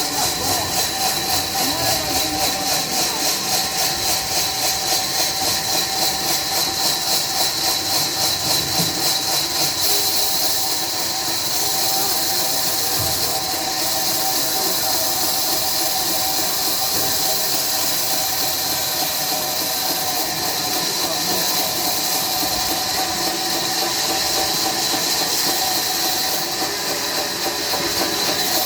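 Sawmill saw cutting through a log: a loud, steady high hiss with a squeal. It pulses about two to three times a second for roughly the first ten seconds, then runs evenly.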